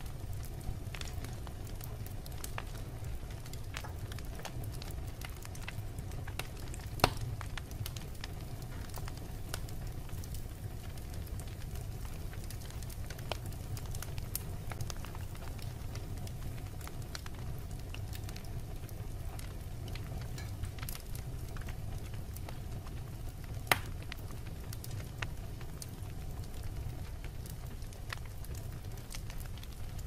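Wood logs burning in a fireplace: a steady low rumble of flame with scattered crackles throughout and two sharper, louder pops.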